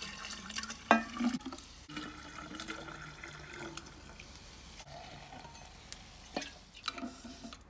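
Strawberry pieces and mint leaves going into a glass bottle tilted on a marble counter: handling clatter of the glass, with a sharp knock about a second in and a few more glass knocks near the end as the bottle is stood upright.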